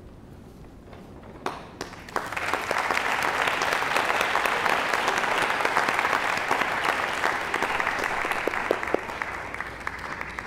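Audience applauding: a few scattered claps, then full applause from about two seconds in, thinning out near the end.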